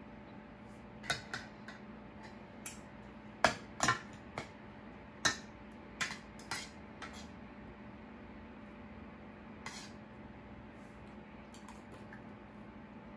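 Metal spoon and fork clinking and scraping against a ceramic plate during eating: a run of sharp clinks over the first several seconds, then only an occasional one, over a faint steady hum.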